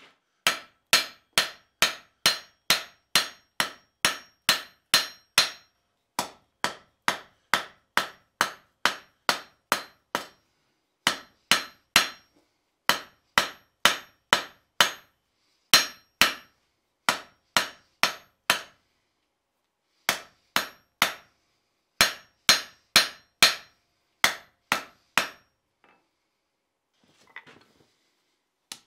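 Hand hammer striking a hot steel bar on an anvil, drawing out a taper for the poker's hook end. The blows come about two to three a second in runs broken by short pauses, each with a bright ring from the anvil. They stop a few seconds before the end.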